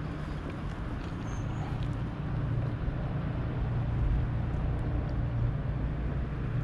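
Steady low rumble of a distant motor over outdoor background noise, growing a little louder about two and a half seconds in, with a few faint light ticks.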